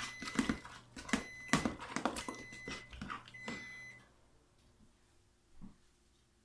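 A metal spoon stirring and scraping thick hot process soap paste in a plastic container: a quick run of knocks and scrapes, with a high beeping tone in short spells over it. Both stop about four seconds in, leaving only a faint knock.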